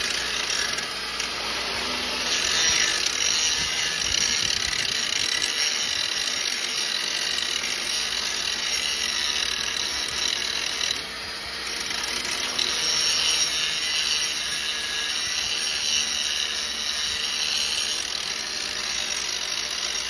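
Angle grinder with a grinding disc running against steel, grinding down a hump on a baler's plunger rail, which the owner takes to be where the stuck plunger has been catching. It lets up for a moment about halfway through, then carries on.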